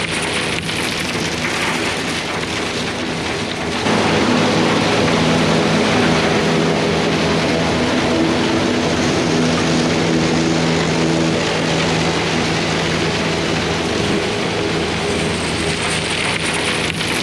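Diesel farm machinery running steadily: an engine's hum with a wash of mechanical noise, stepping up louder about four seconds in.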